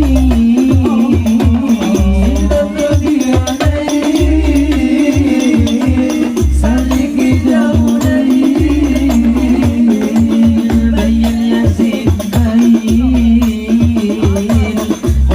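Hadroh devotional music: frame drums and a bass drum beat a steady rhythm under a winding melodic line.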